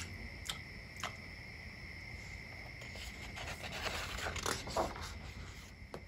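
Faint scraping and rubbing of a paperback picture book being closed and turned over, paper and card sliding, with a few soft clicks in the first second. A faint steady high-pitched whine sits under it.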